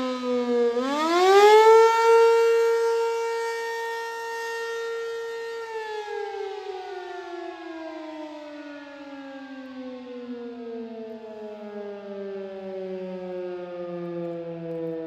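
ACA P-15 electromechanical fire siren sounding: its pitch dips, climbs back up about a second in and holds steady for several seconds, then about six seconds in it begins a long slow wind-down, the tone sliding steadily lower as the rotor loses speed at the end of the test.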